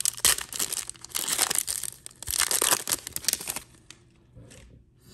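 The foil wrapper of a Panini Prizm football card pack being torn open by hand, crinkling and ripping in several bursts. It stops about three and a half seconds in.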